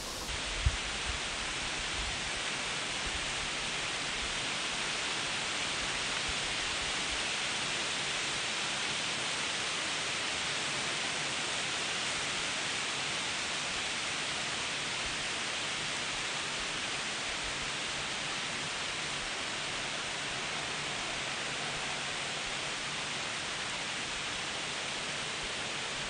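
A steady, even hiss with no distinct events, strongest in the upper-middle range.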